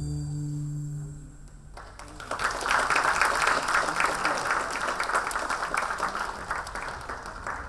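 The last held note of the dance music fades out in the first second and a half, then an audience claps, starting about two seconds in and easing off near the end.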